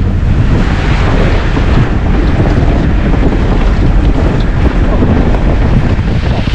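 Strong wind buffeting the microphone: a loud, steady rumbling rush with no letup.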